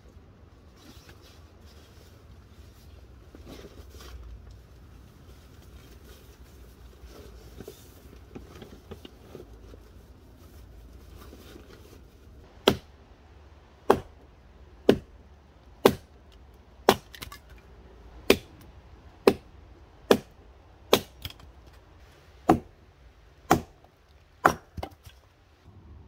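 Hatchet chopping into a log: a string of sharp, loud wooden strikes about once a second, starting about halfway through.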